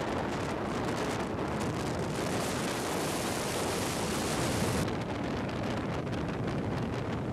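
Strong wind buffeting the microphone on an open boat deck: a loud, steady rush.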